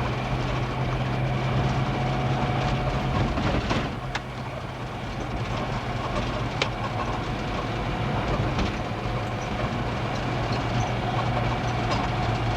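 Car driving, heard from inside the cabin: a steady low engine and road hum with scattered clicks and knocks.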